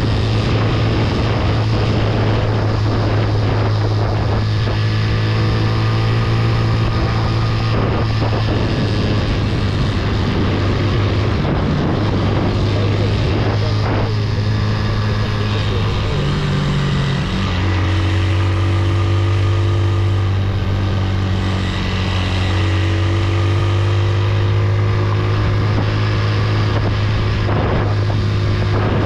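Motorcycle engine running steadily during an off-road ride, its note shifting about 17 seconds in, with wind noise on the microphone.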